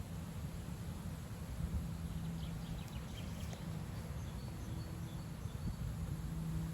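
Strong wind buffeting the microphone, a low, unsteady rumble, with a low hum that comes and goes. Faint bird chirps sound between about two and five seconds in.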